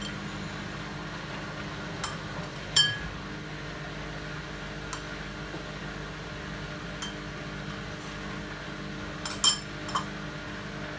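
Bosch WAT28370GB washing machine during an intermediate spin: the drum turns with a steady motor hum, broken by sharp clinks every second or two, the loudest pair about nine seconds in.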